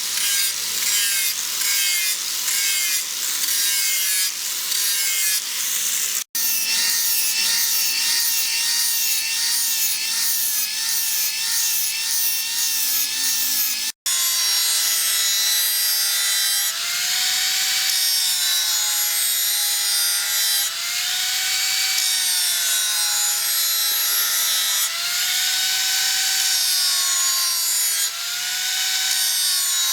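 Steel being worked by hand with a file or saw, a rasping stroke about twice a second with a wavering squeal. The sound cuts off abruptly twice and starts again.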